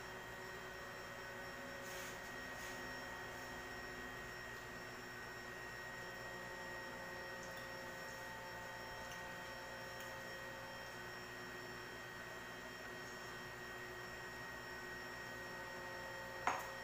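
Steady electrical hum with a few thin constant tones over low room noise, broken by a few faint clicks.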